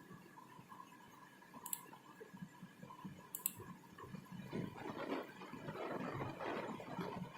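Two short sharp clicks over a faint steady electrical hum, then an irregular rustling noise that grows louder in the second half.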